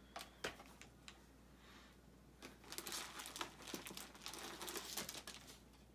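Plastic packaging and wrapped items crinkling and rustling as a child rummages in an Easter basket: a couple of light taps at first, then a dense run of crinkling from about two and a half seconds in that stops shortly before the end.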